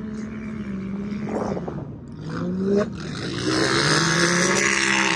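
Off-road race vehicles' engines revving as they drive past on the dirt course, the pitch climbing twice as they accelerate. The sound is loudest near the end as they come closest.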